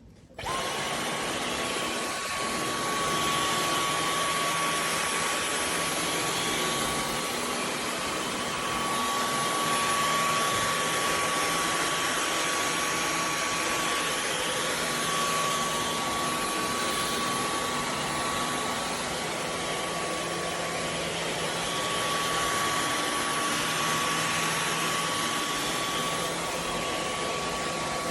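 Dyson V15 Detect cordless stick vacuum switching on about half a second in, then running steadily with an even rush of air and a constant whine.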